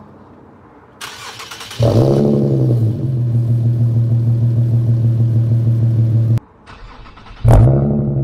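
Infiniti Q50 with an upgraded aftermarket exhaust starting up. After a brief crank the engine catches with a rev flare, then settles to a steady idle. Its sound cuts off suddenly, then it is cranked and starts again with a second flare near the end.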